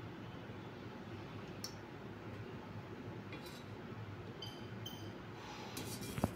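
Steel ladle clinking lightly against a steel bowl a few times while oil is skimmed off the top of a gravy, the sharpest tap near the end, over a faint steady hum.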